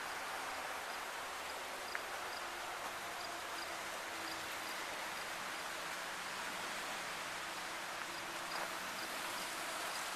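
Steady rush of water spilling over the boulders of a pondless waterfall, an even hiss that holds throughout.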